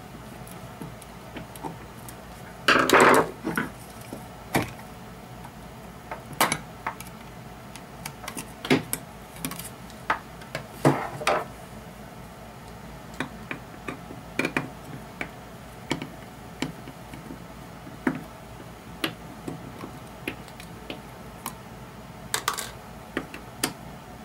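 Scattered clicks, clinks and knocks of a screwdriver and small screws as the metal bottom plate of a guitar effects pedal is unscrewed and lifted off. A longer clatter about three seconds in is the loudest sound.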